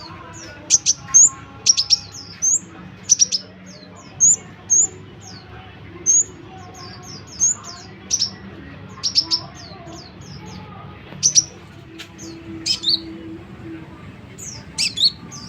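Konin songbird singing in a rapid, chattering run of short, sharp, high chirps, some coming in quick clusters of two or three. This is the vigorous 'gacor' song that bird-keepers play to lure wild konin.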